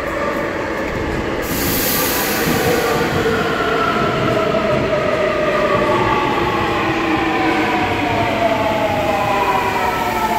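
Busan Metro Line 2 electric subway train pulling into the station and slowing, its cars running past. A whine in several tones falls steadily in pitch as it slows, over the rumble of the wheels on the rails, with a brief high hiss about a second and a half in.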